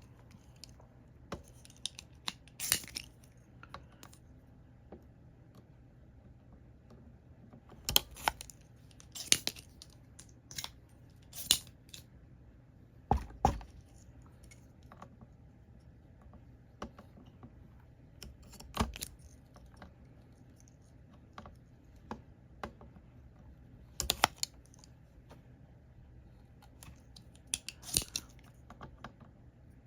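Sharp clicks and snaps at irregular intervals, a dozen or so, some in quick pairs: a spring-loaded desoldering pump being cocked and fired to suck melted solder off a capacitor's joints.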